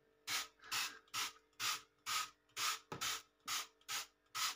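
Trigger spray bottle squirted again and again, short hissing squirts about two to three a second, spraying disinfectant onto a kitchen worktop to kill germs.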